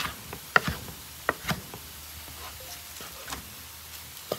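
Chef's knife chopping cooked steak into bite-sized pieces, the blade knocking down onto a wooden cutting board in several irregular sharp knocks.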